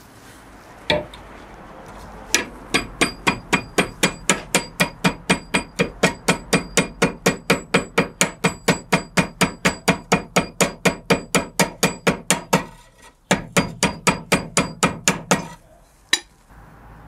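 Hand hammer striking a red-hot iron arrowhead socket over a metal rod: a steady run of quick, even blows, about four a second, each with a bright metallic ring, with a short break about three-quarters of the way through. The work is rounding and sizing the socket to its finished diameter.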